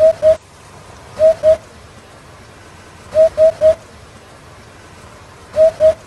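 Eurasian hoopoe singing its low 'hoop-hoop' song: phrases of two or three short, even hoots, repeated about every two seconds.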